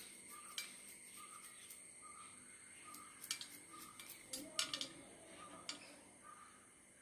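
A knife cutting herbs held in the hand, giving a few faint, sharp clicks, two of them louder a little past the middle. Behind it a bird repeats short chirps about every half second, over a faint steady high tone.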